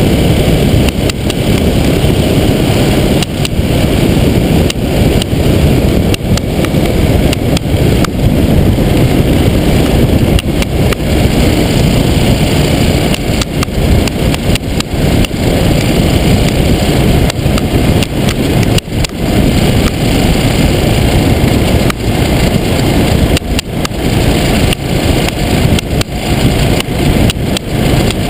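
Motorcycle riding at speed: engine and road noise buried under a heavy, uneven wind rumble on the bike-mounted action camera's microphone.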